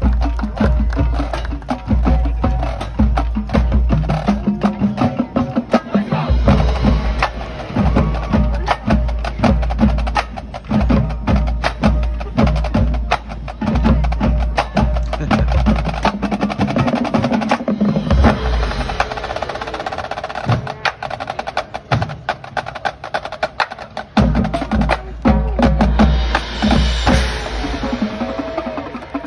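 High school marching band playing a percussion-heavy passage, with the drumline's dense, rapid drumming and the front ensemble's mallet percussion to the fore, over a heavy low end that drops out briefly a few times.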